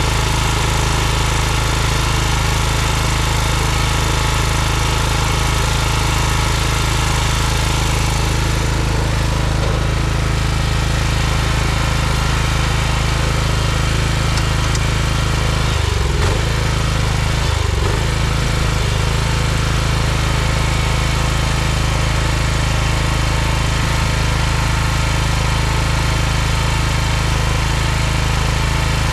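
Lawn tractor's small engine running steadily. It is running with its stuck throttle cable unhooked, the throttle worked by hand at the governor.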